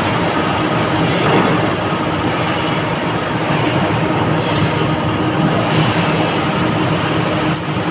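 Steady, loud mechanical running noise with a faint constant hum.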